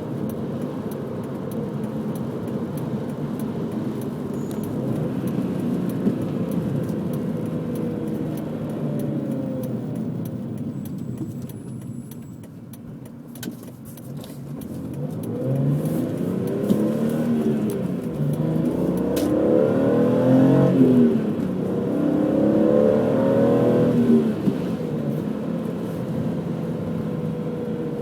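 BMW M3 engine and stock exhaust under way: a steady drone, a dip as the throttle is lifted about halfway through, then the revs climbing and dropping again several times under acceleration through the gears, before settling back to a steady drone near the end.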